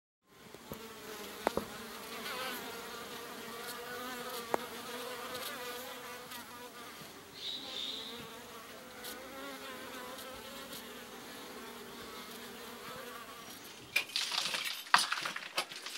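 Honeybees buzzing at the entrance of a hive in a mud wall: a steady, slightly wavering hum. Near the end it gives way to a run of sharp knocks and clattering.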